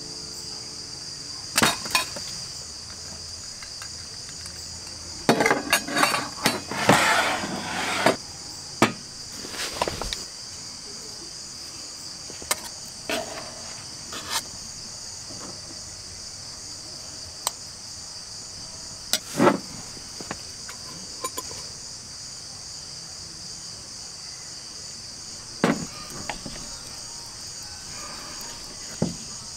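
Steady night chorus of crickets, a continuous high pulsing trill. Scattered knocks and clatters cut through it, with a busier run of clattering about five to eight seconds in.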